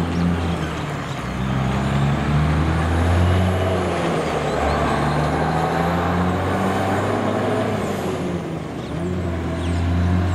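Heavy truck's diesel engine pulling away under load with a loaded low-loader trailer, accelerating through the gears. The engine note breaks and steps down briefly at each gear change, with a faint high whine rising and falling with the revs.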